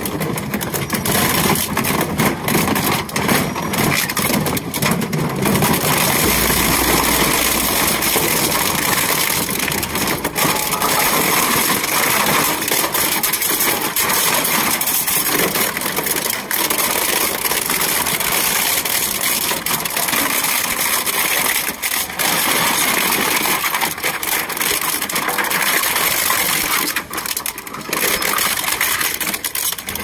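Twin-shaft industrial shredder's hooked cutter discs tearing up a white plastic appliance housing: continuous crunching with frequent sharp cracks and snaps as the plastic breaks apart.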